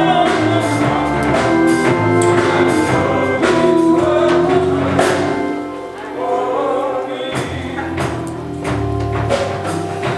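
Gospel music: voices singing over instruments with a steady drum beat.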